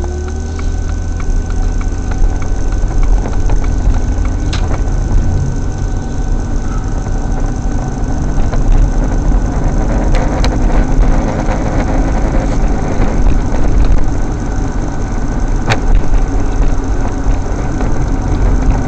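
Car engine and road noise inside the cabin: the engine picks up as the car pulls away from a stop, then runs steadily with tyre noise at road speed, with a few sharp clicks.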